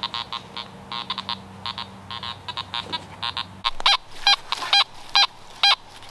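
Fisher F19 metal detector beeping as its coil sweeps over a buried target. The short, pitched beeps are irregular at first, then louder and regular at about two a second for the last couple of seconds.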